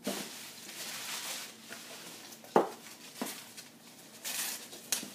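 Plastic packaging crinkling and rustling as a plush toy is unwrapped, with a sharp knock about two and a half seconds in and a click near the end.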